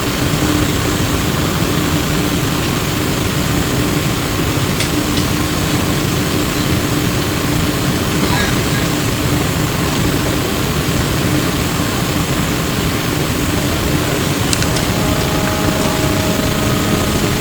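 Interior of an E902 Flyer electric trolleybus: steady running and road noise with a constant hum. A few faint clicks are heard, and a higher whine joins near the end.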